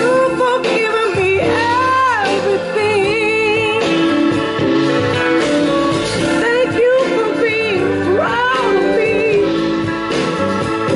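A woman singing a soul/R&B song live, with long sliding notes and vibrato, backed by a band with drums and electric guitar.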